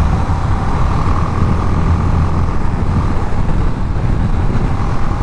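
Wind rushing over a GoPro Hero 10's microphone on a motorcycle ridden at speed, a steady low rumble with the bike's engine and road noise underneath.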